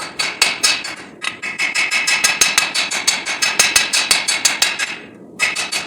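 Hand hammer striking hot 5160 steel on an anvil: a fast, even run of about six blows a second, each with a metallic ring. The blows pause briefly about a second in and again near the end, then start again.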